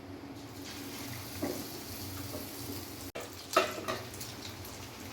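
Batter-coated chicken piece frying in hot oil, a steady sizzling hiss, with a brief louder noise about three and a half seconds in.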